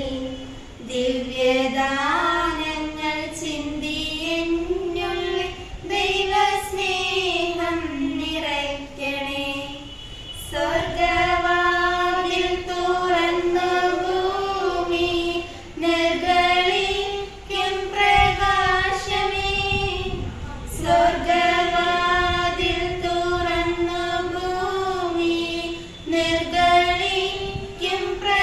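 Two girls singing a prayer song without accompaniment, in sustained phrases with brief pauses for breath between lines.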